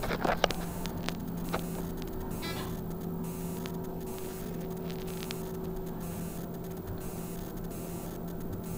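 Hole-less hydraulic elevator running, heard from inside the cab as a steady low hum with a couple of light clicks at the start.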